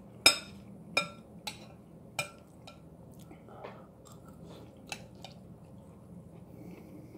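A metal spoon clinks against a bowl four times in the first couple of seconds, the first clink the loudest, as vegetables are scooped up. Then comes quiet chewing of a mouthful of green beans, corn and carrots.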